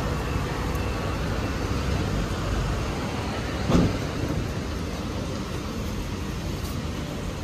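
City street ambience: steady traffic rumble from passing vehicles, with one brief sharp knock about four seconds in.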